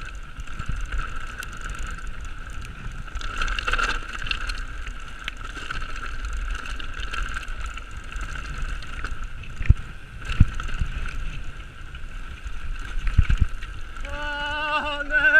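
Mountain bike rolling fast down a rough grass and stone track: tyre and frame rumble, wind on the microphone and a steady high buzz, with a few sharp knocks as the wheels hit rocks. A brief wavering, pitched wail rises over it near the end.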